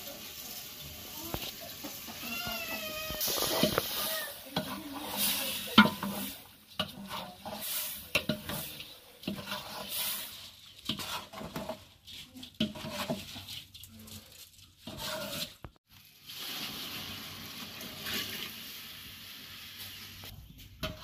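Metal ladle stirring and scraping khichdi in an aluminium pot over a wood fire, with repeated clinks of ladle against the pot and a steady sizzle of the cooking food. A short wavering cry is heard about two to three seconds in.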